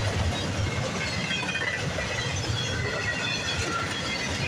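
Empty intermodal well cars rolling past on steel rails: a steady rumble of wheels on track, with scattered faint high squeals.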